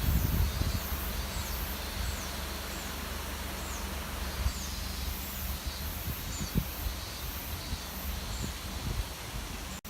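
Steady rushing of a typhoon-swollen river in flood, with wind buffeting the microphone in low thumps. A high, short downward chirp repeats every second or less over the water noise.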